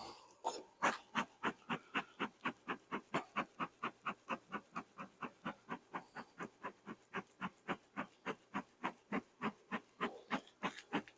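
Beekeeper's smoker being pumped: the bellows puff air in a fast, even rhythm of about four puffs a second.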